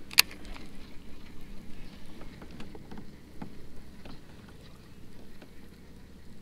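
Baitcasting reel clicking into gear with one sharp click just after a cast, then light scattered ticks and patter as the lure is reeled in.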